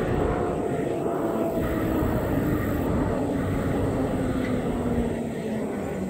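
Wind buffeting the microphone of a camera moving along a road, with an engine drone over it whose pitch slowly falls throughout.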